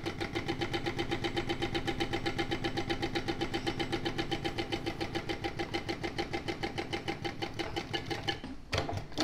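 ProSew 1933B industrial walking foot sewing machine stitching a seam at a steady, even pace, a fast regular beat of needle strokes. It stops shortly before the end, followed by a couple of sharp clicks.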